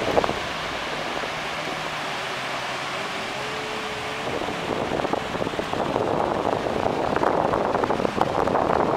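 Steady rush of wind on the microphone and breaking surf, growing louder in the second half, with a brief knock just at the start.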